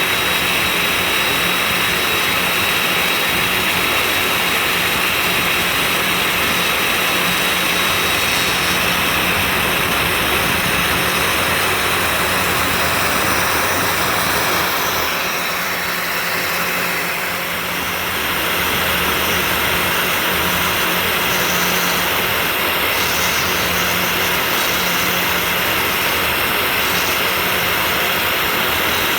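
CNC 3018 Plus desktop router milling with its dust extraction suction running: a loud, steady rushing drone with a steady hum underneath. It eases and changes in tone for a few seconds about halfway through, then comes back up.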